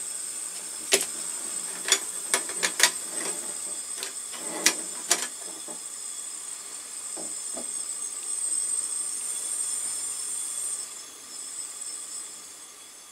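Gas burner of a Bestargot Pixel grill hissing steadily while its valve is adjusted toward a blue flame, with several sharp clicks in the first five seconds. The hiss grows louder about eight seconds in and drops off near eleven seconds as the gas flow changes.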